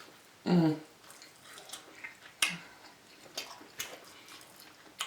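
Close-up mouth sounds of someone eating smoked pork ribs: a short hummed "mm" about half a second in, then scattered wet chewing clicks and lip smacks.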